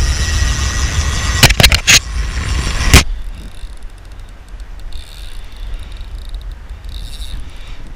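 Wind buffeting the camera microphone, with a few sharp knocks about a second and a half to three seconds in as the camera and rod are handled. After that the wind noise drops and faint rapid ticking is left.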